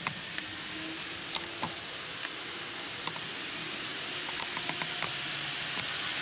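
Several N-gauge model trains running on grey-roadbed sectional track: a steady hiss of wheels and motors with scattered light clicks.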